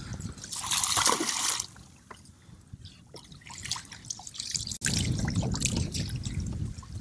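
Water splashing and trickling as a hooked speckled trout thrashes at the side of the kayak, with a loud burst of splashing about a second in. A low rumble comes in for the last couple of seconds.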